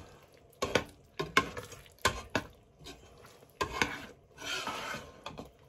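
Metal spoon stirring thick, cooked-down apple pie filling in a Teflon-coated pot, clinking and scraping against the pot several times.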